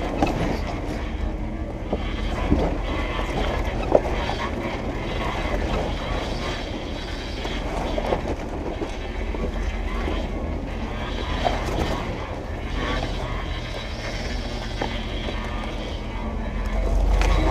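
Jeep Wrangler TJ's engine running steadily at a slow rock crawl, a low hum, with scattered sharp knocks and creaks as the tyres and chassis work over rocks on a steep descent.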